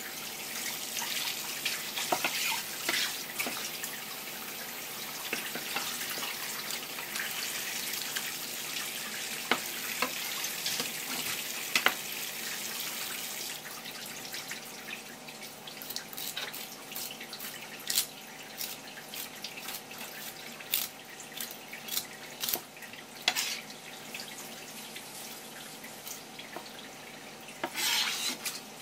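Kitchen sink tap running with water splashing during fish cleaning, then shut off about halfway through, leaving scattered drips and light knocks in the sink; the tap runs again briefly near the end.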